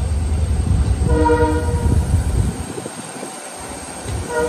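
Train horn giving a short, chord-like blast about a second in and starting another right at the end, over the low rumble of a train rolling slowly through the junction.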